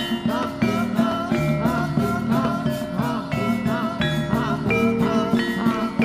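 Javanese jaranan gamelan music playing steadily to accompany a jaran kepang dance: a regular pulse of struck percussion with held metallic tones and a wavering melodic line over it.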